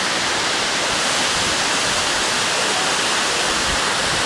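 Aber Falls waterfall: a steady, unbroken rush of falling water.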